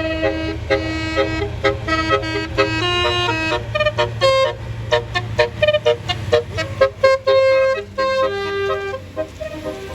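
Basuri multi-tone 'telolet' bus horn playing a melody, then breaking into quick short staccato toots about four seconds in, over a steady low engine hum.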